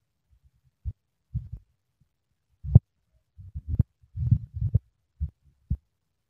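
Wind buffeting the phone's microphone: irregular low rumbles and thumps about half a second to a second apart.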